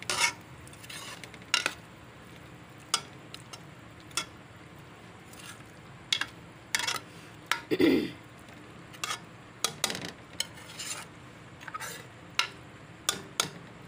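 Steel spoon stirring and scraping a thick chicken and bitter gourd masala in a pan, with irregular scrapes and clinks against the metal over a faint sizzle of the oil, which has separated from the masala. One louder knock comes about eight seconds in.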